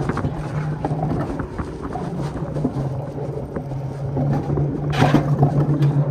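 Alpine mountain coaster sled running downhill on its steel rails: a steady low hum of the wheels on the track with scattered clacks and rattles, louder about five seconds in.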